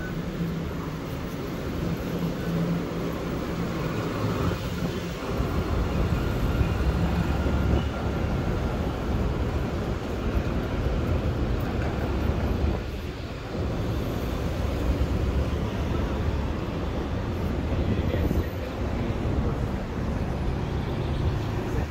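Steady low rumble of vehicles in motion, swelling and easing a little, with a short dip about thirteen seconds in.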